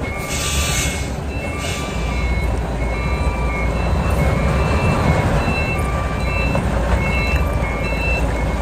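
Truck's reverse warning alarm beeping over and over while the diesel engine runs underneath. The engine grows louder from about two seconds in as it works to back the container trailer up a slope. A short burst of hiss near the start.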